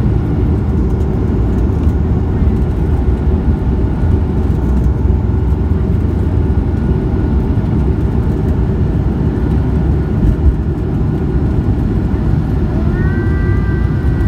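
Jet airliner at takeoff power during its takeoff roll, heard from inside the cabin: a loud, steady engine and runway rumble. A higher whining tone rises in near the end as the plane lifts off.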